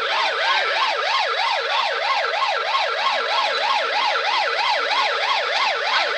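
Police car siren in a fast yelp, its pitch sweeping up and down about four times a second without a break.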